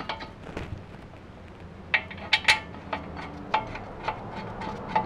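Metal clinks and knocks as a caliper mounting bracket is worked into place over a front brake rotor: a few sharp clinks about two seconds in, then single ones later.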